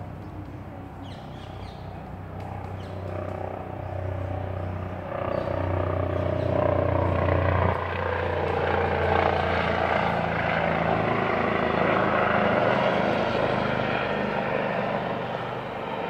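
Engine drone of something passing: a steady hum with a rushing noise that swells over the first five seconds, stays loud through the middle and eases slightly near the end.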